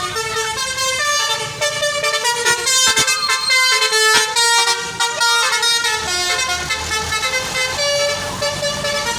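A bus's 'telolet' basuri horn, a multi-tone musical horn, playing a tune of short steady notes that step from one pitch to the next without a break.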